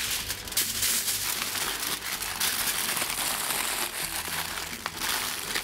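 Aluminium foil crinkling and crackling as it is folded and pressed by hand around a small parcel.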